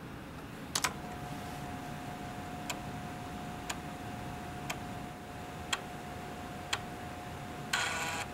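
Laptop 3.5-inch floppy drive formatting a 720K diskette. A keypress comes a little under a second in, then a steady whine from the spinning drive and a sharp click about once a second as the head steps from track to track. A short buzzing burst near the end comes as the format completes.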